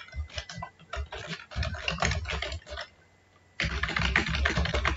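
Computer keyboard typing: quick runs of keystrokes, a short pause a little past halfway, then a faster, denser run near the end.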